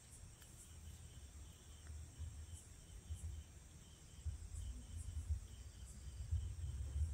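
Faint insects chirping in a steady, high, pulsing trill, with a gusty low wind rumble on the microphone that grows stronger in the second half.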